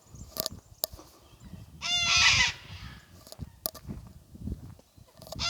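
An animal calling: one high-pitched call about two seconds in and another beginning near the end, with a few sharp clicks in between.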